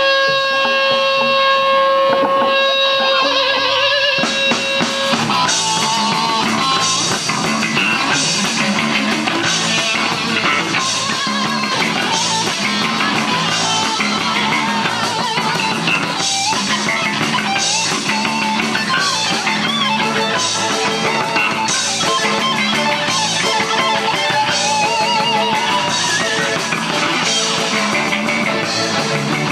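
Rock band playing live: a held electric guitar note rings out, then drums and the rest of the band come in about four seconds in with a steady beat.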